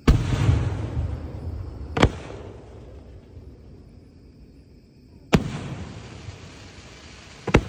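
5-inch aerial firework display shells bursting overhead. A deep boom with a long rolling echo opens, then sharp bangs follow about two and five seconds in, and a quick double bang comes near the end.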